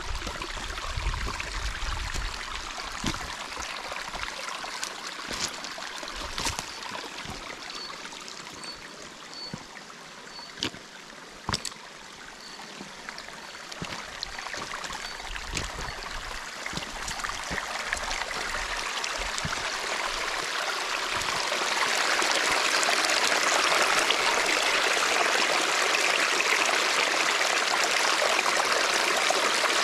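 Shallow stream trickling and splashing over stones. It grows louder and fuller about two-thirds of the way through, then runs steady. A few sharp clicks come near the middle.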